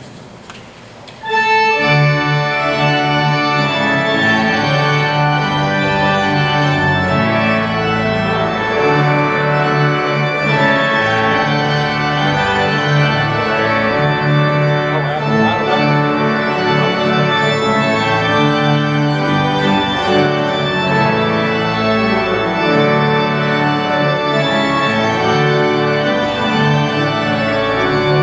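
Church organ playing a postlude after the benediction: full sustained chords over a deep bass line, starting about a second in after a brief hush.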